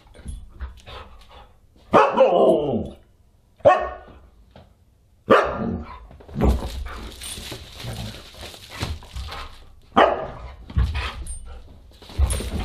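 Siberian husky barking and yowling in play: a call about a second long that falls in pitch about two seconds in, then several short, sharp barks spread through the rest.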